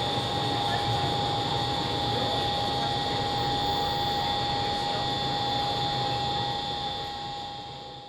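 SRT high-speed train running, a steady rushing noise with steady high whines over it, fading away near the end.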